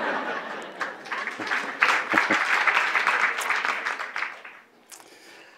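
Audience applause in a hall, swelling about two seconds in and dying away near the end.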